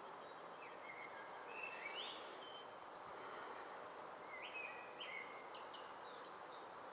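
Birds calling in short, high whistled notes that step up and down in pitch, in two bursts, over a faint steady outdoor background noise.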